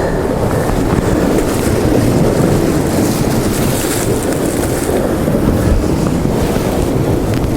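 Strong wind on the microphone over the steady wash of the sea.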